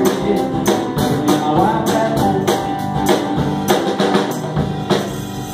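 A small live band playing: a drum kit keeps a steady beat under strummed acoustic guitar and a second guitar.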